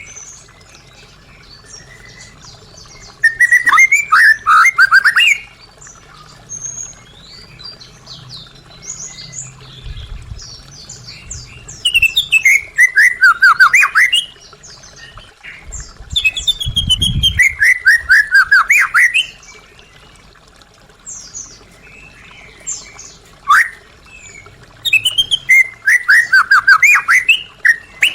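White-rumped shama singing in bursts a few seconds apart. Each burst is a rapid run of sweeping whistled notes, mostly falling in pitch, mixed with sharp high clicks.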